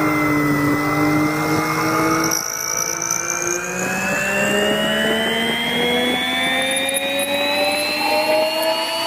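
Rotary friction welding machine running: a steady, high spinning whine of several pitches. The whine dips slightly in the first second, then rises slowly and evenly through the rest.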